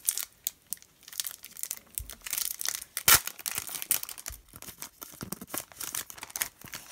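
Foil wrapper of a Panini Excalibur basketball card pack being torn open and crinkled by hand: irregular crackling throughout, with one sharp loud crackle about three seconds in.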